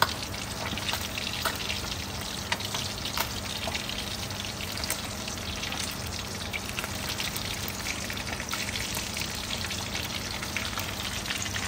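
Whole fish pan-frying in shallow oil in a wok: a steady sizzle with frequent small crackles and pops of spitting oil.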